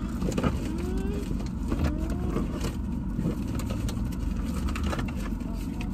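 Steady low hum of a car cabin with the engine idling, with scattered clicks and rustles of people eating fried chicken and handling food packaging. A few short wavering vocal sounds come in the first half.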